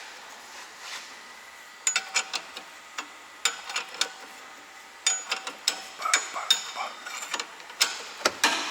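Hand tools working the nut on a seized stabiliser link: metal clicking, ratcheting and clinking in short bursts, some clinks ringing briefly.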